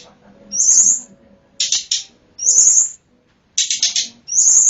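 Tledekan gunung lure call: high, sharp bird calls about once a second, alternating a short trill that falls slightly in pitch with a harsh, buzzy chatter.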